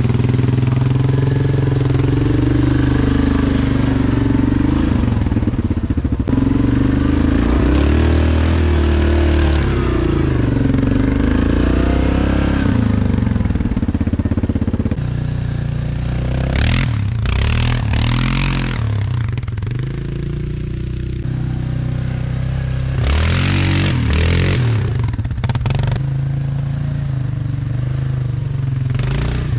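Yamaha Grizzly ATV's single-cylinder engine running under load as it is ridden through a pond, the engine note rising and falling, with two louder rushes of noise a little past halfway and again about a third of the way from the end.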